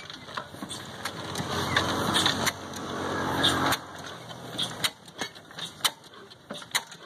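Old Ruston Hornsby single-cylinder diesel engine being hand-cranked: a dense, building machine sound for about four seconds that then cuts off abruptly. After that the engine turns over on its own with a slow series of sharp clacks, roughly two a second, as it starts.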